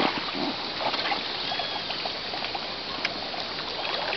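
Water trickling and lapping around a sea kayak at a reedy bank, with a few light clicks.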